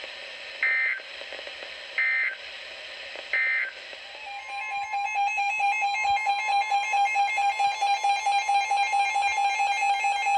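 Emergency Alert System data tones: three short bursts about a second and a half apart, the end-of-message signal after a weather warning. About four seconds in, a steady two-tone EAS attention signal starts and holds, with a rapid flickering tone pattern above it.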